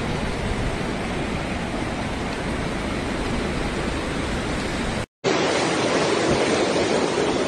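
Steady rushing roar of a muddy river in flash flood. It cuts out for an instant about five seconds in, then comes back louder.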